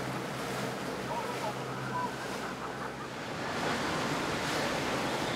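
Steady rush of wind and water wash from boats on the river, with a faint low steady hum that fades out about halfway through and faint distant voices.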